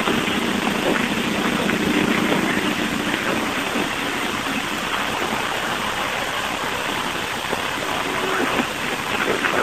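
Steady rushing noise with no clear pitch, like hiss or static on a field recording, cutting in abruptly at the start, with a few short sharp sounds near the end.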